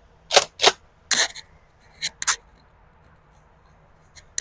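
Mossberg 590S pump-action 12-gauge shotgun firing double-aught buckshot and being racked: a string of sharp cracks and clacks, several in quick pairs.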